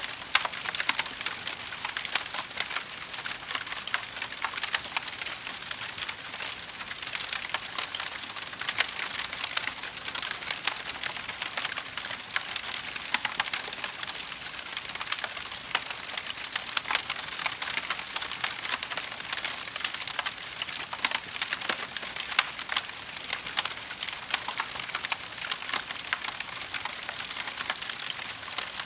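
Fire crackling steadily: a dense, unbroken stream of small sharp pops and snaps.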